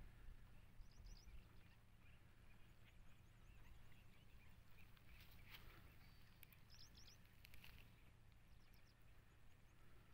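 Near silence: faint outdoor ambience with a low steady rumble and a few short runs of high, quick bird chirps, about a second in and twice more around seven seconds in.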